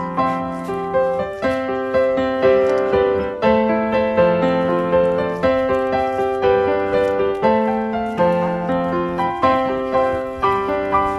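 Background piano music, with chords and a melody played in a steady rhythm.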